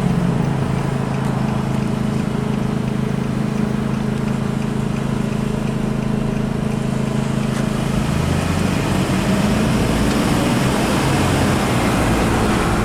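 Car engine and road noise heard from inside the cabin, a steady hum that turns rougher and shifts in pitch about eight seconds in.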